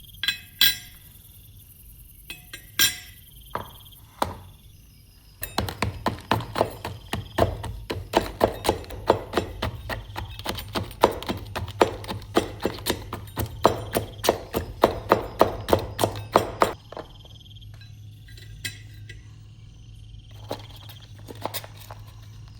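A hammer striking metal: a few single knocks, then about eleven seconds of quick, regular blows at three to four a second, which stop abruptly.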